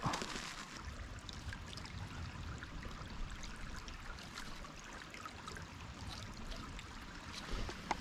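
Shallow stream trickling steadily over stones and concrete stepping blocks.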